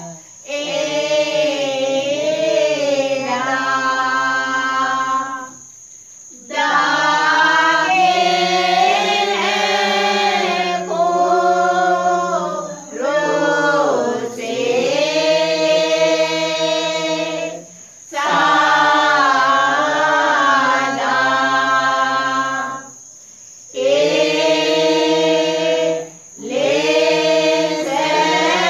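A prayer group singing pasan, Sinhala Catholic Lenten passion hymns, in long sung phrases with short breaks between them.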